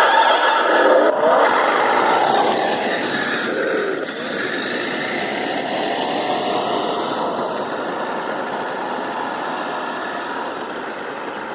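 Remote-control car's battery-powered electric drive whining as it sets off suddenly, its pitch rising and falling over the first few seconds, then running steadily and slowly fading away.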